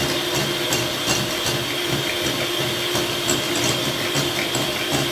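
Electric hand mixer running steadily, its beaters whisking egg yolks and sugar in a ceramic bowl, with scattered light clicks throughout.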